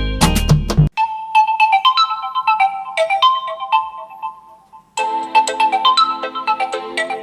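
Smartphone ringtone melodies played through the Realme Narzo 50 Pro 5G's loudspeaker. A loud, bass-heavy snippet cuts off about a second in. A light tune of quick plucked notes follows, and a fuller tune with lower notes takes over about five seconds in.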